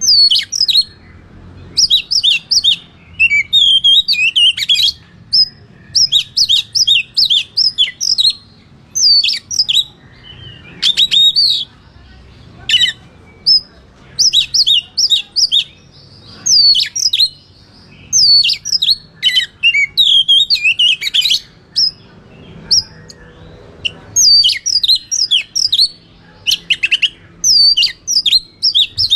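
Oriental magpie-robin (kacer) singing loud, rapid phrases of sharp, high notes that sweep up and down, in quick runs broken by short pauses. This is its full, open 'ngeplong' fighting song, the kind used to provoke other magpie-robins.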